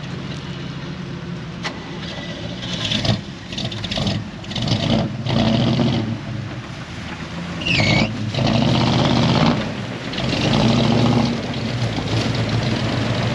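A vehicle engine running and revving in repeated surges, several times over.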